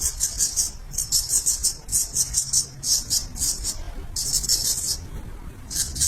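Razor scraping across a scalp in quick runs of short strokes, with brief pauses between runs.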